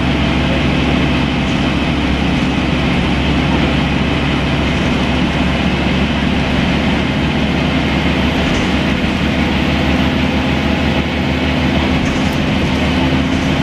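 Scania N230UB bus's five-cylinder diesel engine running steadily, heard from inside the passenger saloon, with a constant hum and road noise.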